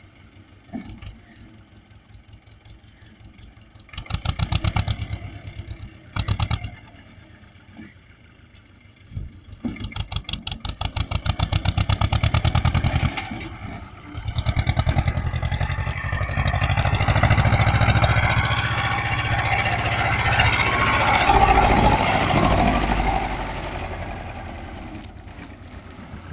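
Ursus C-330 tractor's two-cylinder diesel engine, pulsing at low speed, then revved in two short bursts. From about 10 s it works at higher revs for long stretches and grows louder and fuller as it comes close, easing off near the end.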